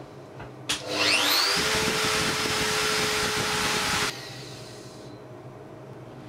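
Kress router-motor spindle switched on with a click, spinning up with a rising whine to a loud steady high-pitched whine. The loud sound cuts off suddenly about four seconds in, leaving a faint falling tone.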